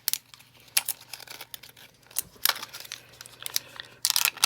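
Plastic packaging of CR2016 coin-cell batteries crinkling and tearing as it is opened: a run of irregular sharp crackles, with a denser burst near the end.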